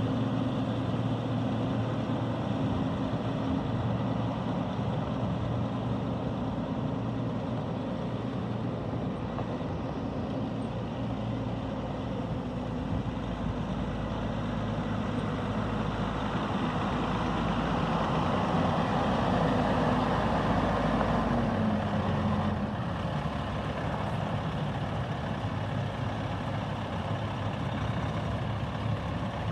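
A 2006 Kenworth T800 truck tractor's diesel engine running as the truck is driven slowly. About two-thirds of the way through, the engine gets louder and its pitch rises, then drops back again.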